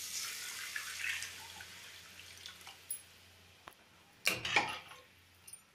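Water poured into a hot steel kadai of masala, chickpeas and potatoes, sizzling and then fading away as it cools the pan. About four seconds in comes a short, louder clatter of the stirring spoon in the pan.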